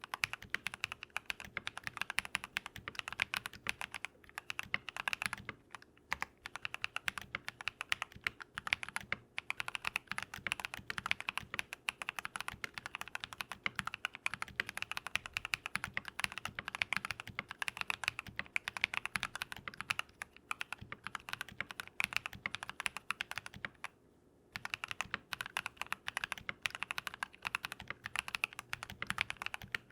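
Fast continuous typing on a Keychron V1 mechanical keyboard with lubed Drop + Invyr Holy Panda tactile switches, modded with foam, switch films and tape, giving a dense run of keystroke clacks. Typing pauses briefly around a quarter of the way through and again for about a second in the last third.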